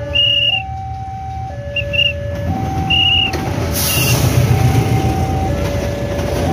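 Level-crossing warning alarm sounding two alternating tones, each held about a second, while a diesel-hauled passenger train passes close by. The rumble of the locomotive and its wheels on the rails builds from about two and a half seconds in, with a brief hiss as the locomotive goes past near four seconds.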